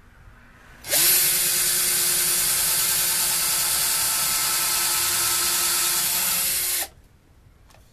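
Power drill running steadily for about six seconds, drilling countersunk screw holes through the cypress roof panel of a bird feeder; it starts about a second in and stops near the end.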